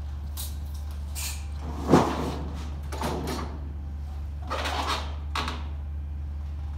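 Clacks and rattles of aluminum trim coil being handled on a portable sheet-metal bending brake, with one sharp clack about two seconds in and a few lighter knocks later, over a steady low hum.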